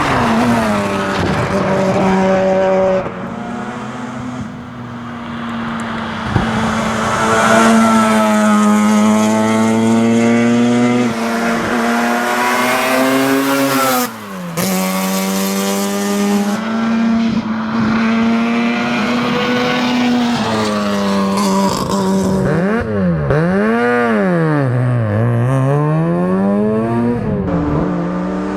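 Mazda RX7's rotary engine under hard driving, its revs climbing and dropping through the gears. Revs fall sharply about halfway through, and near the end they swing up and down quickly several times.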